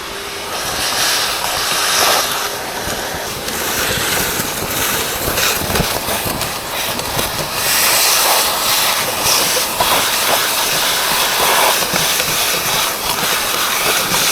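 Gutter vacuum running, a steady rush of air through the pole that swells and eases, with short crackles of debris being sucked out of the gutter.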